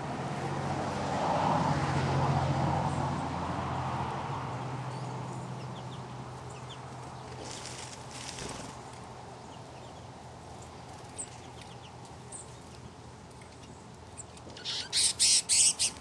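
Finches chattering with faint, high chirps over a steady low hum. A swell of rushing noise rises and fades in the first few seconds, and a quick run of about six loud, sharp sounds comes near the end.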